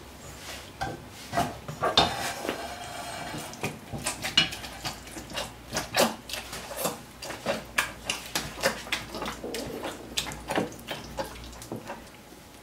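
Metal potato masher mashing soft-boiled peas in an enamel pot: repeated wet squishing with irregular clinks and knocks of the masher against the pot, one or two a second. Near the start a clank rings briefly off the pot.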